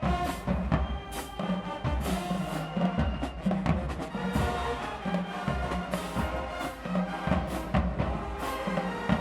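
Marching band playing: brass over a steady beat of bass drums, with cymbal hits.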